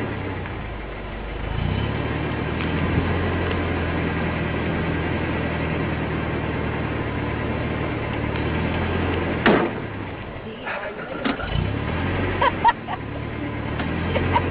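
A steady low engine-like hum, broken off a little after nine seconds in by a sharp sound, then several short clicks and brief sounds before the hum returns.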